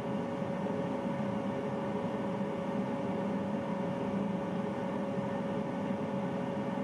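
Bathroom water-heater boiler running steadily: an even droning hum with a constant mid-pitched tone over it.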